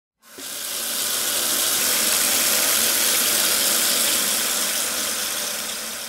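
Kitchen faucet's pull-down sprayer running a steady stream of water onto chopped leafy greens in a sink. The water comes on about a quarter second in.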